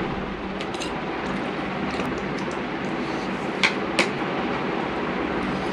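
Steady background noise with two sharp metallic clicks a little past halfway, about a third of a second apart: a fork clinking against the steel pot of noodles while eating.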